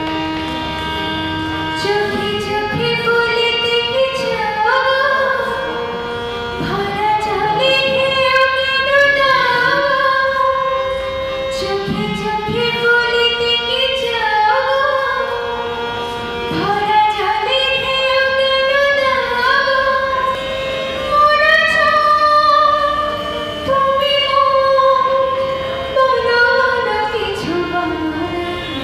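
A woman singing with harmonium accompaniment: the harmonium holds steady reedy notes beneath a melodic vocal line that glides and ornaments between phrases.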